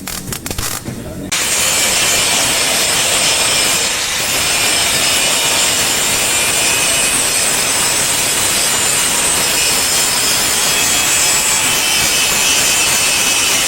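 Power sander or grinder running steadily against a car body panel, a loud continuous abrasive hiss with a faint high whine. It starts about a second in, after a few short knocks.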